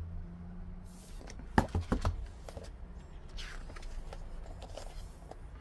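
A heavy hardcover photobook being handled and opened: a few sharp taps and knocks about a second and a half in, then a soft paper rustle.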